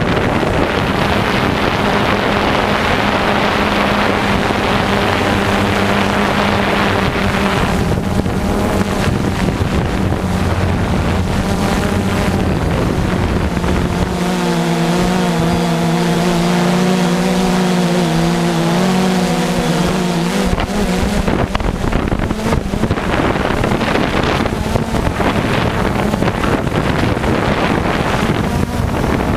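Radio-controlled off-road cars running on a dirt track, with wind blowing on the microphone. A steady droning tone with overtones holds for several seconds past the middle.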